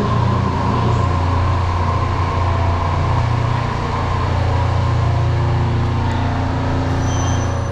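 Steady low mechanical hum of a Daegu Metro Line 3 monorail train standing at the platform, with faint steady tones above it.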